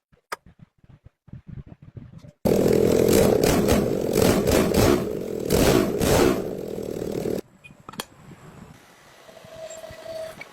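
An engine running and revving loudly for about five seconds, starting and stopping abruptly, after a few faint clicks.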